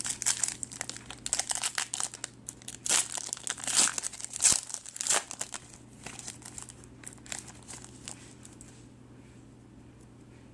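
The wrapper of a trading card pack being torn open and crinkled, dense crackling for the first six seconds or so, then thinning out and stopping about two seconds before the end.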